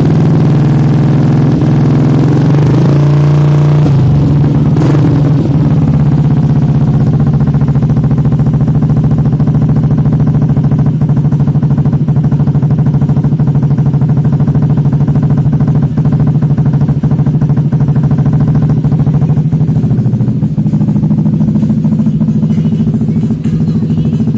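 Yamaha Aerox 155 scooter's single-cylinder four-stroke engine running through an Austin aftermarket racing exhaust. It is revved briefly a few seconds in, then idles steadily.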